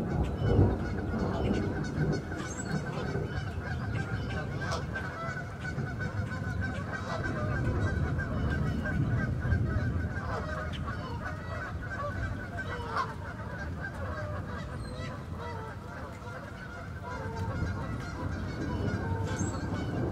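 Rain falling steadily on a lake: a dense patter of small drops plinking on the water surface over a continuous low rumble.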